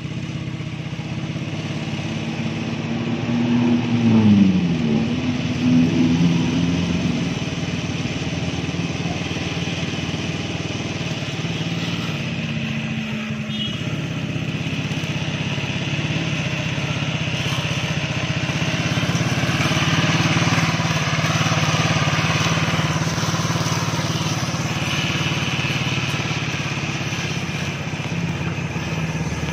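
Small engine of a homemade grass-cutting machine running, its speed rising and falling a few seconds in, then holding steady.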